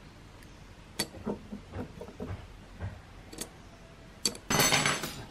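Small metal clicks and taps of tweezers and brass gears being handled while a clock movement is taken apart, ending in a louder metallic clatter about four and a half seconds in.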